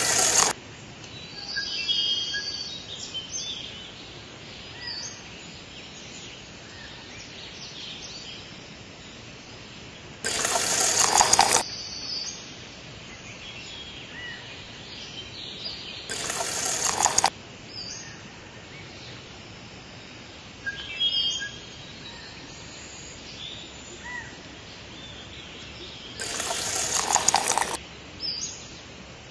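Outdoor ambience with birds chirping now and then. Four times, a loud rushing burst of noise lasting a second or two cuts across it.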